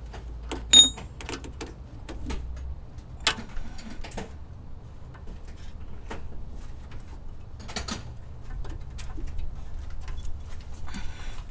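Hands working plastic wiring-harness connectors under a vehicle, giving scattered small clicks, rattles and scrapes. About a second in there is a sharp metallic clink with a brief high ring.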